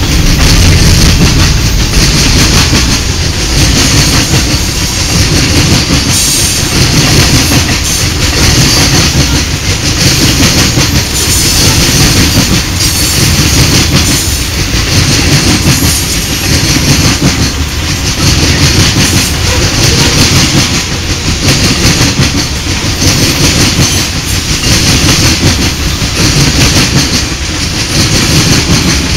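Covered hopper cars of a Norfolk Southern freight train rolling past close by, loud, with the wheels clacking over the rail joints in a regular beat about every second and a half.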